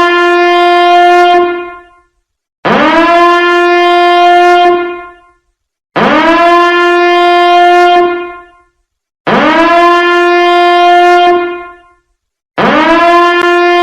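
Biohazard alarm: a horn-like alarm tone that sweeps quickly up in pitch, holds a steady note for about two seconds, then dies away. It repeats about every three seconds; one blast is sounding at the start and four more follow.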